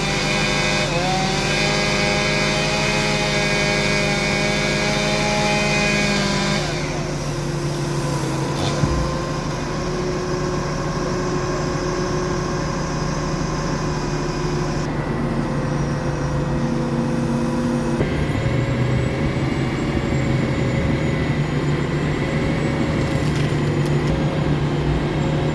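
Engine-driven machinery running steadily throughout, with its tone shifting abruptly a few times. There is one sharp knock about nine seconds in.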